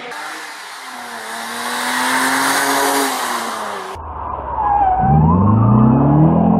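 Rally car engine passing at a distance, its pitch gliding gently. About four seconds in a closer car takes over, accelerating hard through a bend: the engine revs climb steeply while the tyres squeal.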